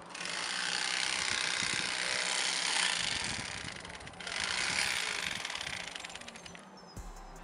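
Corded electric fillet knife running as its blades cut through fish fillets. It runs about four seconds, stops briefly, then runs again for a shorter spell that fades out.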